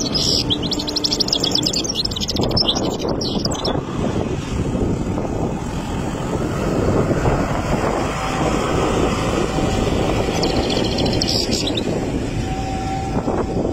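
Three-month-old European goldfinch singing a fast, high twittering song for the first four seconds or so, then a shorter burst about eleven seconds in. Both bursts sit over a steady low rumble.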